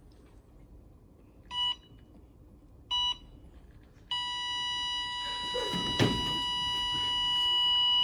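Electronic beeping: two short beeps, then from about four seconds in a continuous steady beep tone, with a single thump about six seconds in.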